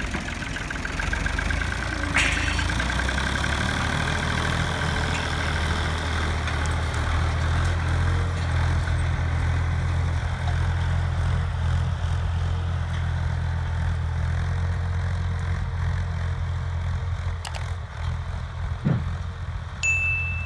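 Tractor engine running steadily with a low, even hum. A short high-pitched ding sounds near the end.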